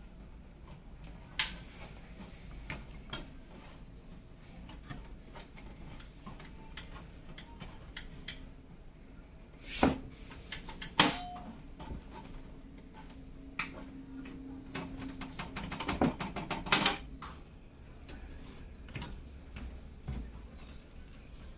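Hands working on a PC case and its parts: scattered small clicks and taps of metal and plastic, two louder knocks about ten and eleven seconds in, a steady low hum for a few seconds after that, and a quick run of clicks near the end.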